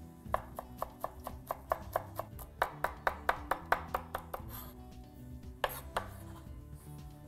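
Chef's knife chopping fresh parsley on a wooden cutting board: a quick, even run of knocks about five a second for some four seconds, a pause, then one more knock near the end.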